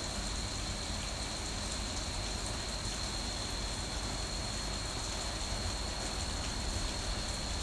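Heavy rain falling steadily during a thunderstorm, with no thunderclap in this stretch. A thin, steady high tone sits under the rain.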